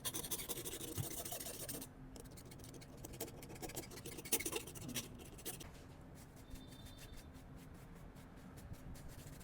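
Light scratching and scraping with scattered small clicks, busiest in the first two seconds and again around four seconds in, then thinner and quieter.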